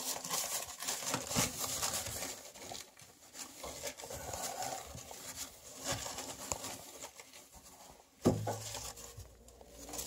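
Irregular rustling and light clicks of a plastic microwave-meal tray being handled, with a single thump about eight seconds in.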